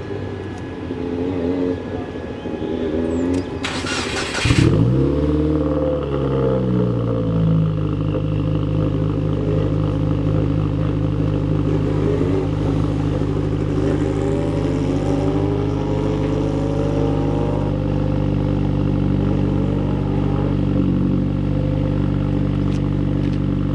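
Subaru WRX's FA20 turbocharged flat-four engine starting about four seconds in, flaring up briefly, then dropping back to a steady idle.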